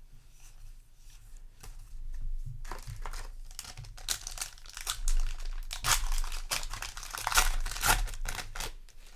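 Foil booster pack wrapper crinkling and tearing as a trading-card pack is handled and ripped open, a dense run of rustling crackles that starts about two seconds in.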